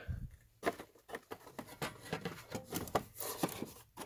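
Carded toy cars in plastic-and-cardboard packaging being handled and moved among other toys: light, irregular clicks, taps and rustles.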